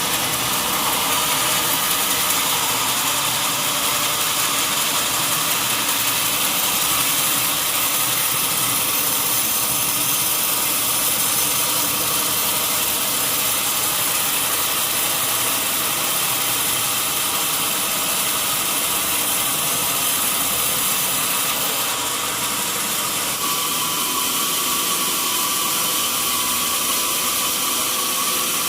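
Sawmill machinery running steadily: a continuous loud mechanical drone with a few steady tones over a hiss, its tone shifting slightly about three-quarters of the way through.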